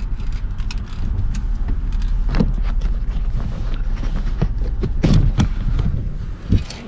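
Honda Ridgeline's V6 idling with a low steady rumble heard inside the cab, broken by several clunks and knocks from the driver's door being opened and the camera being handled, the loudest a cluster about five seconds in.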